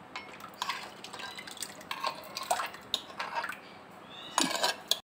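Thick homemade yogurt being tipped and scraped from a bowl into a cooked cornflour-and-milk cream, with soft wet plops and small knocks of the bowl against the mixing dish and whisk. The sound grows briefly louder near the end.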